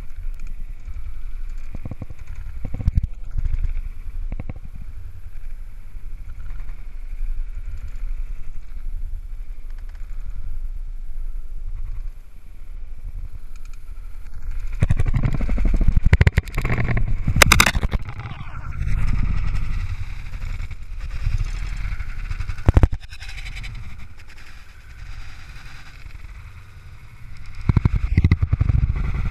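Mountain bike rattling and its tyres running over rough dirt singletrack, with wind rumbling on the microphone; the noise grows rougher about halfway through, with a few sharp knocks. Near the end the bike crashes and the rider falls into the grass.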